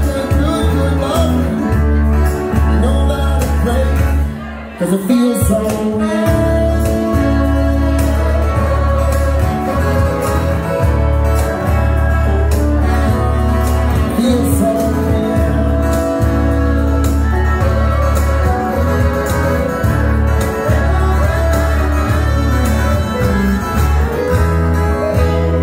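A live country band playing, with electric and acoustic guitars and a fiddle over a steady bass, with a brief drop in level about four and a half seconds in.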